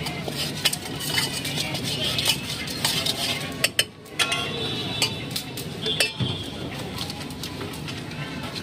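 A metal spoon scraping and clinking against stainless steel bowls and pots while food is mixed, with irregular sharp clinks over a steady background hum and a brief lull about four seconds in.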